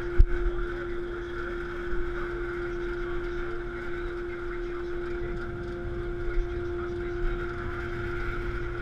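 Work boat's engine running steadily under way, a constant hum, with one sharp knock just after the start.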